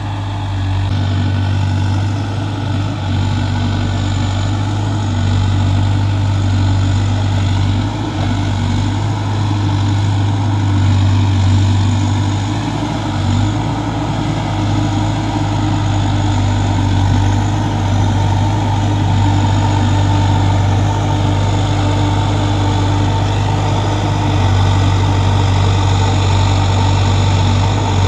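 Diesel engine of a Case backhoe loader running steadily while it digs and loads soil, a low drone that swells and eases slightly as the machine works.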